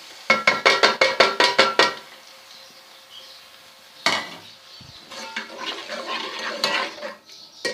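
A metal spoon rapped about ten times in quick succession against a metal pot or bowl, ringing with each tap, then a single clank about four seconds in followed by stirring in the pan, as the whisked yogurt goes into the frying onion and garlic.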